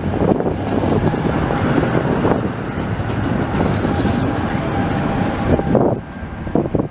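Electric tram passing close by: its wheels rumble on the rails, with a faint steady whine in the middle and a brief high squeal about five and a half seconds in. The rumble drops away about six seconds in.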